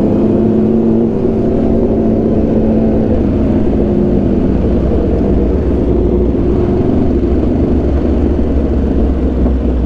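Aprilia RSV4 1100 Factory's V4 engine with SC Project exhaust running at a steady cruise under way, its pitch drifting only slightly, over a low wind rumble.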